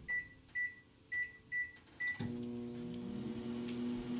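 Microwave oven keypad beeping five times as the cooking time is entered, then the oven starting up about two seconds in and running with a steady hum, heating a paper bag of popcorn kernels.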